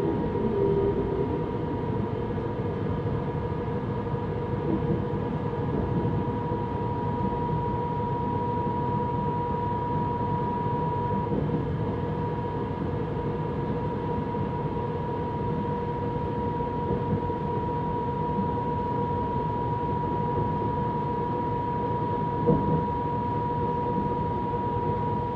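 Steady running noise inside a moving electric S-Bahn train, with a steady high tone held throughout and a brief knock near the end.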